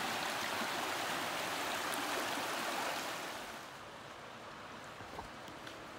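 Shallow creek rushing over rocks: a steady hiss of running water that falls to a softer, more distant rush about three and a half seconds in.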